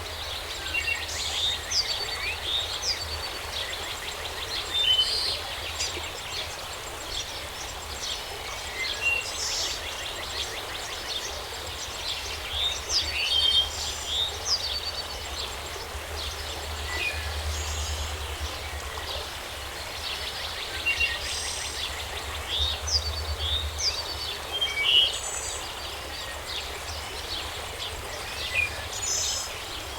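Many forest birds chirping and calling, short overlapping calls throughout, over a steady background hiss and a low rumble.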